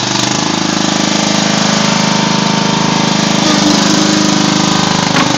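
Small engine of a Magnum MPB 16 concrete buggy running steadily and loudly.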